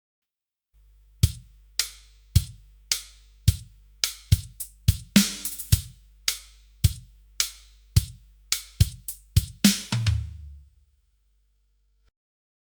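A run of short, sharp emphasis 'pop' sound effects for video captions, over a steady low hum. The hits come about every half second, then closer together, and end on a deeper hit that fades out.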